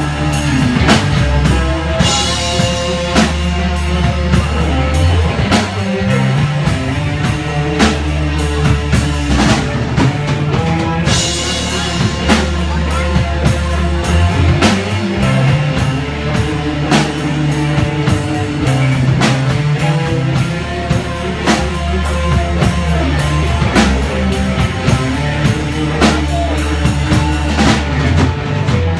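Live rock band playing: electric guitar through a modded Jet City JCA22H tube amp head, over bass guitar and a drum kit keeping a steady beat, with cymbals washing in twice.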